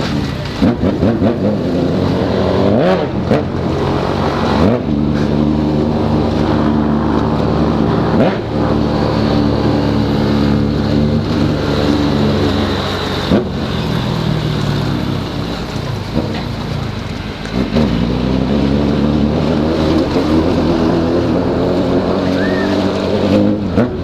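Motorcycle engine revved hard three times, the revs climbing quickly and then held at a steady high pitch against the rev limiter, the 'corte de giro' limiter cut.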